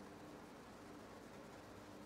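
Near silence: faint steady background hiss with a low hum.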